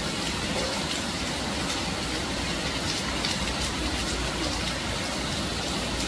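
Steady rain falling, with a few sharp drop ticks.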